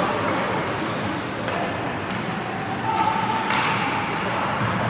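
Ice hockey game noise in a rink: a steady hiss of skating and play on the ice, with a sharp knock about three and a half seconds in.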